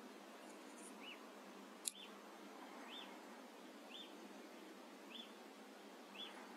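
A faint high chirp, repeated about once a second over a steady hiss, from a small animal calling in the night field. One sharp click about two seconds in.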